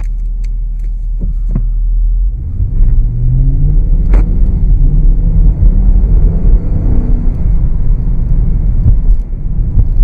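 2015 Dodge Charger R/T's 5.7-litre HEMI V8 heard from inside the cabin, pulling away from a stop and accelerating, its low rumble rising in pitch as speed builds, with a sharp click about four seconds in.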